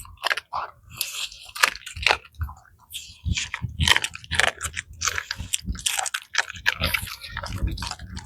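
Rottweiler chewing a raw chicken carcass, its bones cracking and crunching between the teeth in a rapid, irregular run of sharp cracks, with a brief lull just before the middle.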